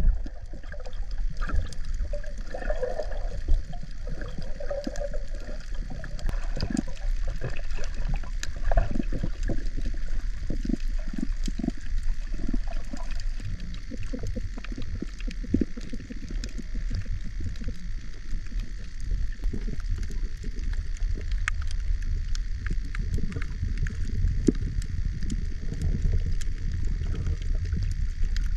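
Underwater sound just below a wave-stirred surface: a steady low rumble of moving water with gurgling, mostly in the first few seconds, and many scattered sharp clicks and crackles.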